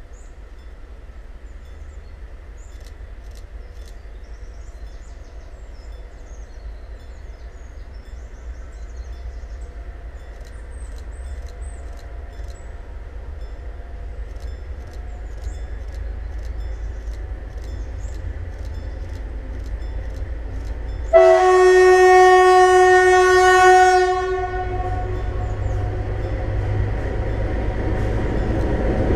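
DR class 232 'Ludmilla' diesel locomotive approaching, its Kolomna V16 diesel engine a low rumble that grows steadily louder. About 21 seconds in it gives one loud horn blast lasting about three seconds, and the engine stays loud afterwards as it draws near.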